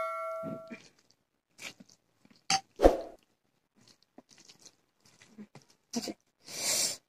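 A metal serving bowl ringing out after a spoon strikes it, fading within the first second. Then scattered chewing and smacking with a few small clicks and knocks from hands working rice on plates, and a short breathy noise near the end.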